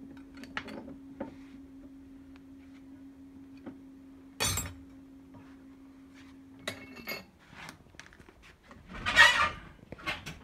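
Metal hand tools and parts clinking on a steel workbench: scattered light clicks, a sharp clank about four and a half seconds in, and a louder metallic clatter near the end. A steady low hum runs underneath and stops about seven seconds in with a slight drop in pitch.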